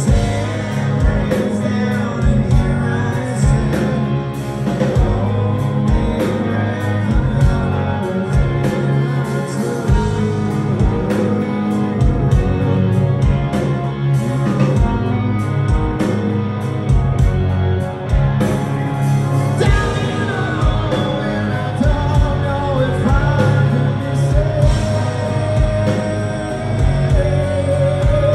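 Live rock band playing, with electric guitars and drums, and a singer's voice coming through more clearly from about twenty seconds in.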